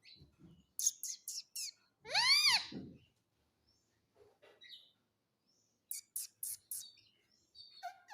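Pet parrot calling: a quick run of short sharp chirps, then one loud squawk that rises and falls in pitch about two seconds in, and another run of four sharp chirps later on.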